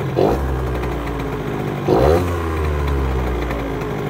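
Piaggio Zip scooter's two-stroke engine with a Malossi MHR 70cc race cylinder kit, running and revved sharply twice, once just after the start and again about two seconds in, the revs falling away after each blip.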